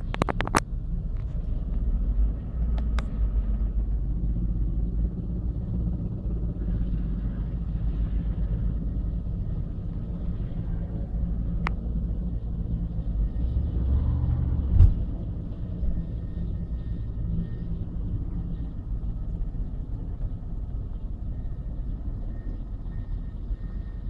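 Military helicopters' rotors and engines giving a steady low rumble, with a single sharp knock about fifteen seconds in.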